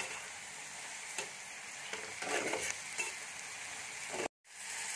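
Chopped onion, capsicum, tomato and green chillies sizzling in hot oil in a frying pan on high flame, with a spatula stirring and scraping the pan a few times about two seconds in. The sound drops out for a moment near the end.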